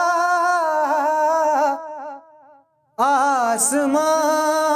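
A man singing a naat in long, wavering held notes. About two seconds in, the phrase fades away in steps to a brief silence, and he starts a new phrase about three seconds in.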